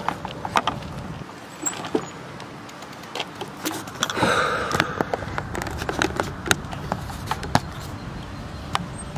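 Irregular clicks and knocks from a bicycle in motion, over a steady low rumble, with a brief rush of noise about four seconds in.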